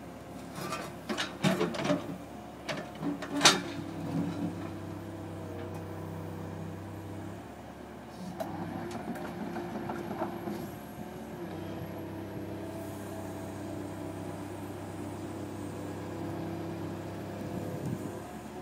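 CAT mini excavator's engine and hydraulics working steadily as its grapple handles a concrete block wall section, with a lower hum that comes and goes as the arm takes load. A cluster of sharp knocks and cracks from the concrete in the first few seconds, the loudest about three and a half seconds in, and some scraping and crunching near the middle.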